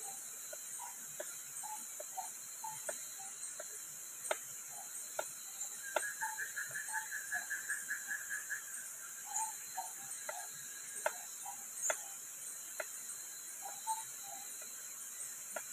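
Small knife clicking against a wooden cutting board as garlic and shallots are sliced, sharp taps at irregular intervals. Underneath is a steady high chirring of night insects, with a short rapid trill from about six to eight seconds in.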